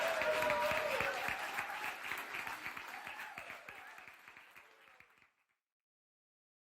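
Audience applauding, with a voice or two over it at first, fading out steadily over about five seconds and ending in silence.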